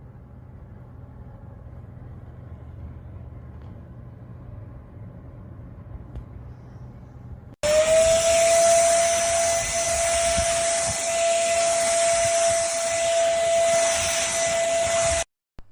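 A low steady rumble, then about seven and a half seconds in a sudden cut to a Simplus 400W vacuum cleaner running loudly: a steady motor whine, rising slightly in pitch at the start, over a strong rush of air, ending abruptly shortly before the end.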